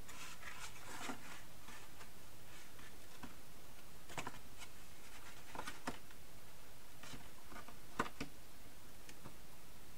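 Cardstock being handled and folded: scattered soft rustles and light taps of paper, with one sharper snip of scissors about eight seconds in.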